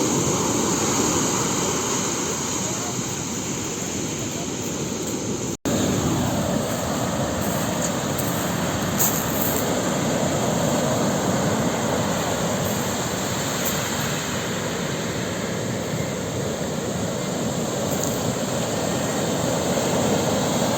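Sea waves surging on the shore: a steady rush of surf, cut off for an instant about five and a half seconds in.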